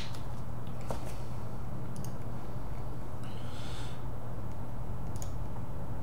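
Steady low electrical hum from the recording setup, with a few sharp computer mouse clicks scattered through it and a short soft breath or rustle about halfway.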